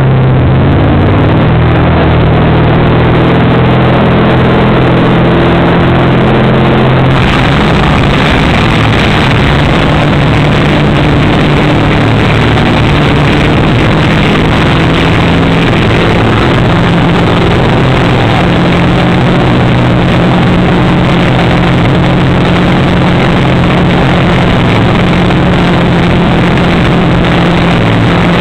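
Motorboat engine running at speed under load while towing a wakeboarder. Its steady tone rises a little several seconds in, over the rush of water from the boat's wake.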